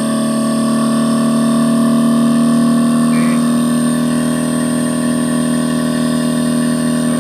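Panasonic 2.5 HP inverter air conditioner running, its compressor and outdoor fan motor giving a steady hum made of several level tones. This is the sound of the unit working properly after its IPM (inverter power module) was replaced.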